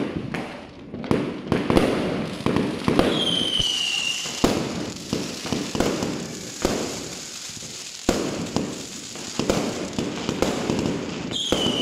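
Aerial fireworks going off in a rapid string of sharp bangs and pops, with a falling whistle about three seconds in and another near the end.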